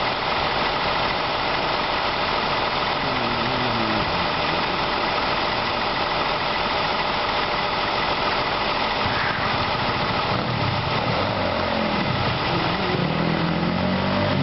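Emergency vehicles' engines idling at the scene, a steady, unbroken din.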